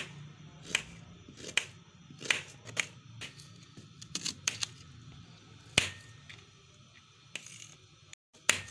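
Kitchen knife slicing through an onion and striking a cutting board: about a dozen sharp, irregularly spaced knocks of the blade on the board.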